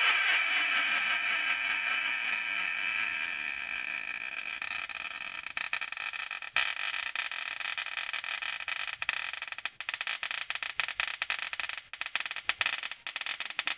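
ZVS-driven Tesla coil's spark buzzing and hissing steadily, then breaking up about halfway through into an irregular sputtering crackle with brief dropouts. The supply is being turned down toward the point where the ZVS driver shuts itself off.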